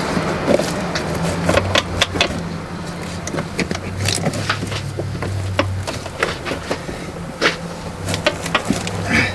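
Scattered clicks, knocks and rustles of a vehicle's floor carpet being dragged out from under plastic interior trim, over a steady low hum.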